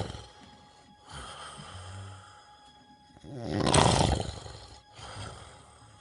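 Snoring: a softer breath about a second in, then one long, loud, rattling snore in the second half, followed by a shorter, softer breath.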